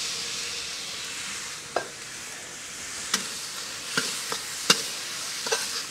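Fried rice sizzling in a hot wok as sauce is poured in, then a spatula scraping and clicking against the wok as the rice is stir-fried. The sizzle is strongest at the start, and the clicks come every half second to second from about two seconds in.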